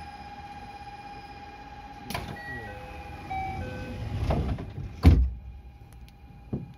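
Sliding doors of a JR West 223 series 2000 commuter train closing, with a steady tone and a few short beeps. They end in a loud thump about five seconds in, and there is a smaller knock near the end.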